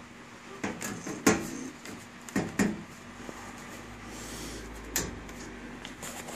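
Sheet-metal top panel of an upright washer being slid forward and seated onto its tabs: several sharp knocks and clunks in the first three seconds and one more about five seconds in.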